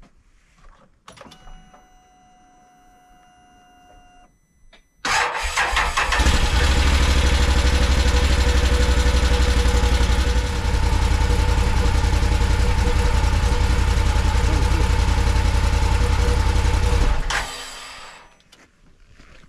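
Can-Am Defender HD10's Rotax V-twin engine being started: a faint steady whine for a few seconds at key-on, then the starter cranks and the engine catches about five seconds in. It idles steadily for about twelve seconds and is switched off, running down quickly. It is run briefly after an oil change to circulate the fresh oil before the level is rechecked.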